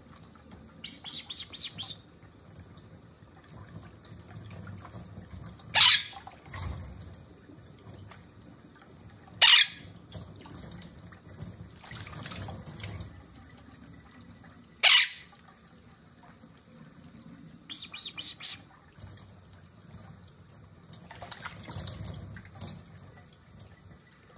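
Quaker parrot bathing in a shallow dish of water under a trickling kitchen faucet: bursts of splashing and wing flapping, with three loud, short, sharp chirps spaced a few seconds apart.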